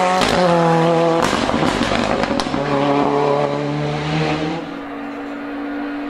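A racing touring car's engine, held at high revs as the car passes. About a second in the note breaks for a gear change, with a few sharp cracks, then picks up again at steady revs. Near the end a quieter, lower, steady engine note takes over.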